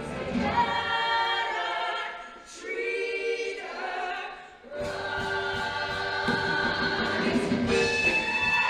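Show choir singing in held, many-voiced chords; the sound drops to a quieter, thinner passage in the middle, then the full choir comes back in about halfway through.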